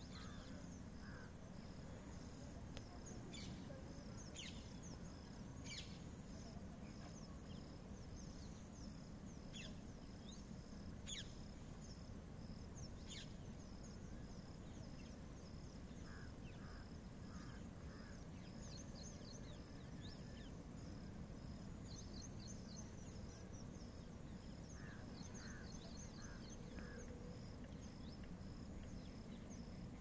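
Faint outdoor ambience: a steady high-pitched insect trill, with scattered short bird chirps and a low background rumble.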